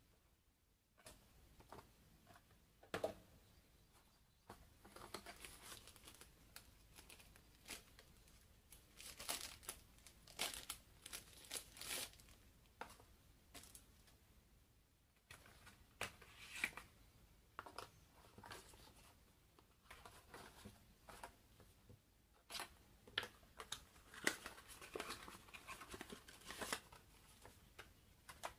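Faint unboxing sounds from a Mi Band 3 box and its plastic packaging: rustling, crinkling and tearing, with scattered light clicks and taps as the parts are handled.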